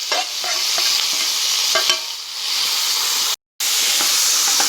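Veal shank and sliced vegetables sizzling in ghee and oil in a pot over high heat, with a utensil knocking and scraping against the pot as it is stirred. The sound cuts out for a moment a little over three seconds in, then the sizzling carries on steadily.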